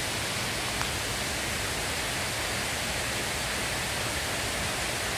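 Waterfall rushing steadily, with one light tick about a second in.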